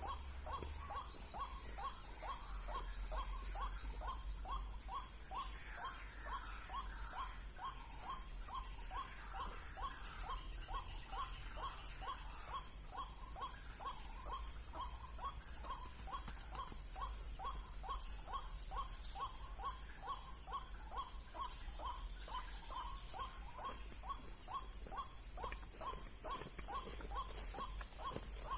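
White-breasted waterhen (ruak-ruak) calling a short note over and over, very evenly, about twice a second. A steady high-pitched drone runs behind it.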